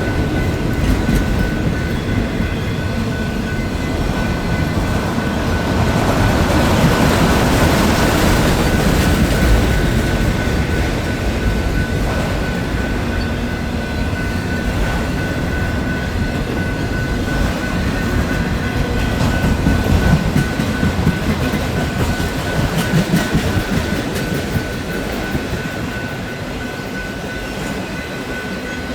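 Freight train rolling past: a steady rumble of steel wheels on rail with scattered clacks, and a steady high whine over it.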